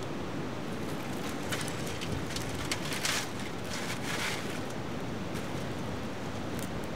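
Dry twigs crackling as they catch fire in a small steel fire stand, with scattered sharp pops and two brief louder spells of crackling and hissing about three and four seconds in.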